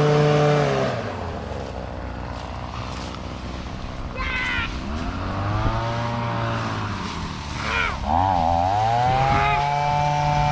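An engine running, dropping in speed about a second in, rising and falling again midway, and picking back up to a steady speed near the end.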